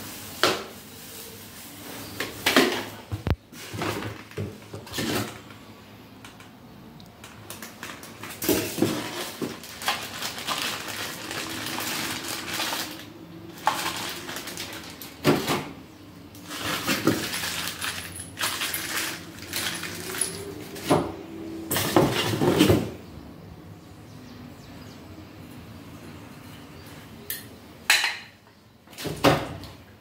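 Ceiling fan parts being unpacked from a cardboard box: plastic wrapping rustling, with scattered knocks and clinks of the plastic canopy and metal motor against the box and each other.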